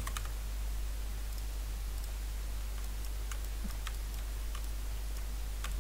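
Scattered computer keyboard and mouse clicks, a few in quick succession at the start and then single clicks every half second to second, over a steady low hum.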